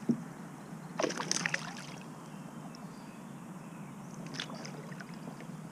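Water sloshing and splashing beside a kayak, with a short splash at the start and a longer burst of splashing about a second in, then faint small splashes.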